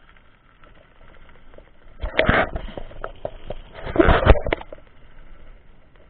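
Mountain bike rolling over a gravel road: a low crackle of tyres and rattling, with two louder bursts of clattering noise about two and four seconds in.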